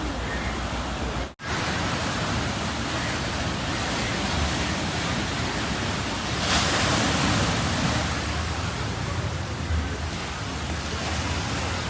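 Steady rush of sea surf with wind buffeting the microphone, swelling briefly a little past halfway.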